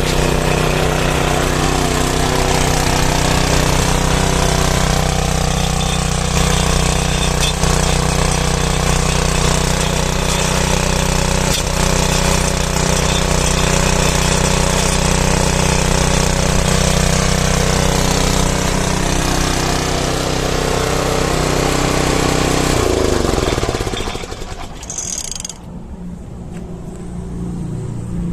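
Small engine of an Iseki Pansy 25 (KM25-BDR) walk-behind cultivator running steadily at speed, then dropping in pitch to a low idle about 23 seconds in.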